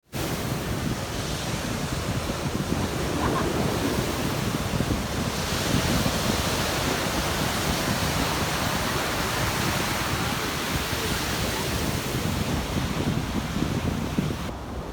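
Waves washing over a rocky shore, a steady rushing noise that swells about five seconds in, with a low rumble of wind on the microphone.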